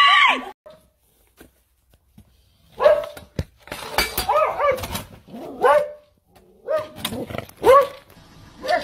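A dog barking: about half a dozen short, high barks spread over the last six seconds, with a couple of sharp clicks among them.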